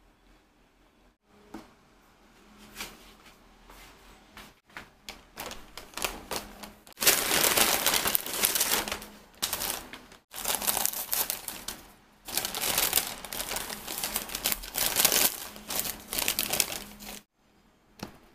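A paper bread wrapper crinkling and rustling as it is handled and opened, in loud stretches with short breaks from about seven seconds in until near the end. Before that, quieter small knocks and rustles.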